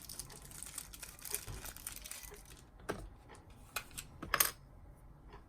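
Plastic crinkling for the first couple of seconds, then a few sharp plastic clicks and knocks, the loudest about four and a half seconds in, as a battery is fitted into a small wireless remote control.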